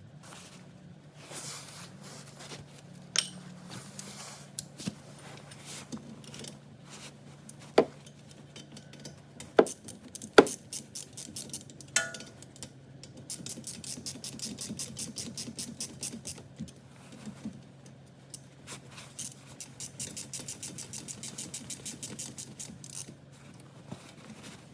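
Ratchet wrench clicking in two long quick runs, and several sharp metallic knocks of tools and parts being handled, over a steady low hum.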